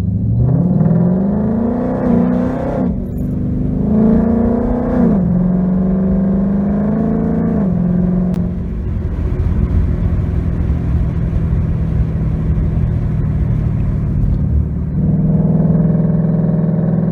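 Ford 5.0 Coyote V8 running through a muffler-deleted exhaust while the Mustang accelerates. The engine note climbs in pitch and drops back at each upshift, twice, then holds steady before easing off to a steady cruise drone that swells again near the end.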